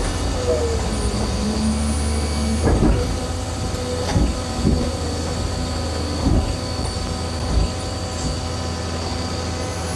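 Komatsu hydraulic excavator at work: its diesel engine runs steadily under load with a thin steady whine, and the bucket clunks about five times as it digs into sandy ground.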